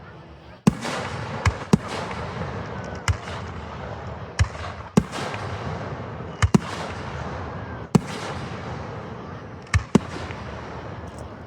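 Fireworks display: about a dozen sharp bangs of bursting shells at irregular intervals, some in quick pairs, over a continuous rumble of noise.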